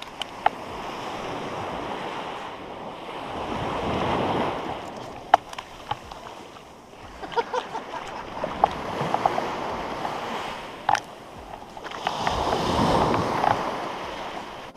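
Small surf breaking and washing up a sandy beach, swelling and fading in surges every four to five seconds, with a few sharp clicks.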